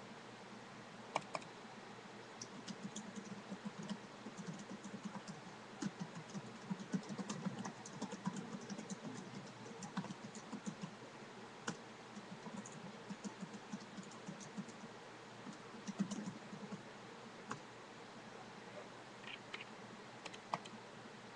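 Computer keyboard being typed on in quick runs of keystrokes with short pauses, plus a few single louder clicks; the typing thins out to only occasional clicks in the last few seconds.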